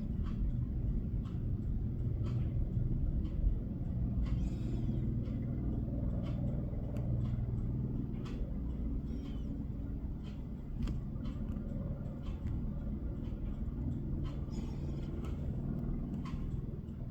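Helicopter heard at a distance while it flies a slung load down from a high-rise roof: a steady, low rumble from its rotor and engine.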